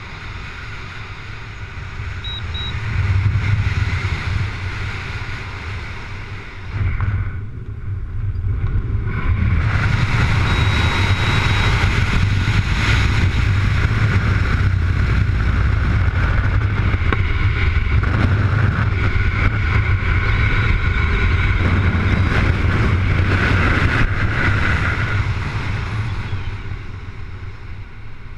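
Wind rushing over a helmet or body-mounted camera's microphone during a parachute canopy descent and swoop: a loud rushing with a deep rumble, made by the rush of air at flying speed. It eases briefly about seven seconds in, then comes back strong and tapers off near the end as the canopy slows over the ground.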